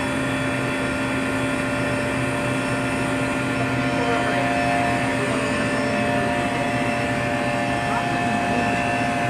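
Refrigeration vacuum pump running with a steady drone that holds several constant tones. It is pulling a vacuum on a semi-hermetic compressor so that fresh oil is drawn into the crankcase.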